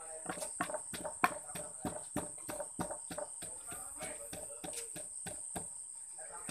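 Steady rhythmic knocking, about four sharp strikes a second, with a continuous high chirring of crickets behind it.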